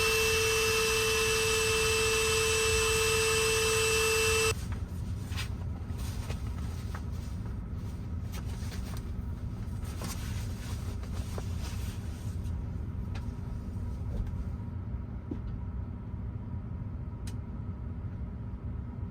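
Small electric air-mattress pump running with a steady whine, slowly inflating the mattress, then switched off about four and a half seconds in. A low steady rumble with a few faint clicks follows.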